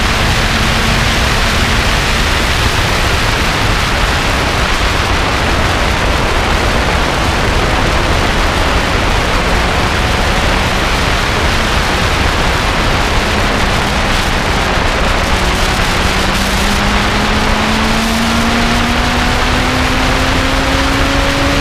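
Lotus race car at speed on a circuit: a heavy, steady rush of wind and road noise, with the engine note faint beneath it. Through the second half the engine climbs steadily in pitch as the car accelerates.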